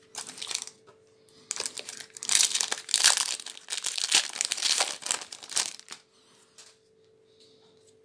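A Magic: The Gathering booster pack's foil wrapper being torn open and crinkled by hand, a dense run of crackling from about a second and a half in until near six seconds.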